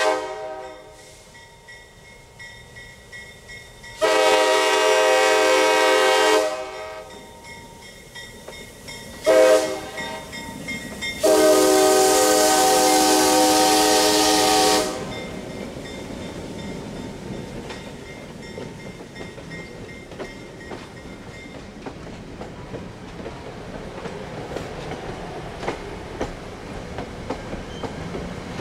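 Reading Company FP7 diesel locomotives blowing their air horn for a grade crossing: the tail of one long blast, then long, short, long. After that the locomotives and passenger cars roll past, wheels clicking over the rail joints.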